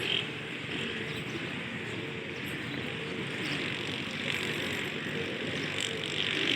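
Steady background hum of distant city traffic, with no distinct events.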